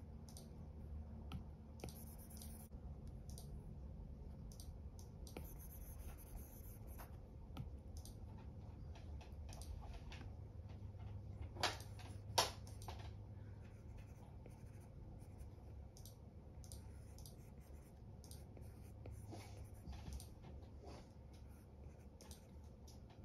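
Apple Pencil tip stroking and tapping on an iPad's glass screen: soft scratchy strokes and light clicks, with two sharper taps about halfway through, over a low steady hum.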